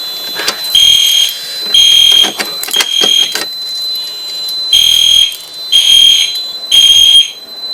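Fire alarm horn strobes sounding the temporal code-3 evacuation pattern after a pull station has been pulled: three half-second horn blasts about a second apart, a pause of about a second and a half, then three more. A steady high-pitched tone runs underneath throughout.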